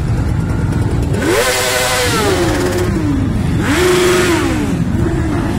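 Motorcycles riding close past in a slow column, over a steady rumble of many engines. Two bikes rev: the engine note rises and falls about a second in, and again near four seconds.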